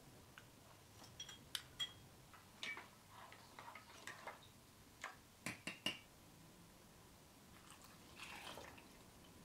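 Faint scattered clicks and light knocks of a wooden spatula stirring palm sugar syrup in an enamel saucepan. Near the end comes a short, soft pour of the syrup into a glass bowl.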